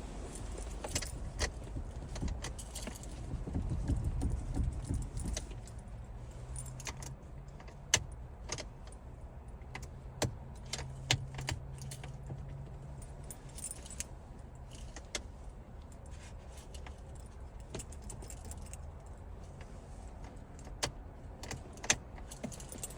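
A keyring jangling, with sharp irregular clicks, as the key is worked in the locked ignition of a Cadillac DTS that has no power. A low rumble rises briefly a few seconds in.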